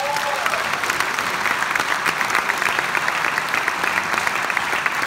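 Audience applauding, a loud, dense, even clatter of many hands clapping, with a short whoop from the crowd at the start.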